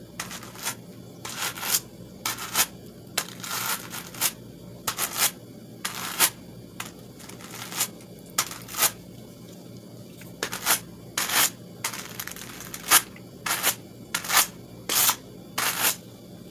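A pair of wooden hand carders with wire teeth brushed against each other through brown wool: a quick, uneven series of short scratchy strokes, about two a second, with a brief pause about two-thirds of the way through. The carding combs the fibres so they all lie the same way, ready for spinning.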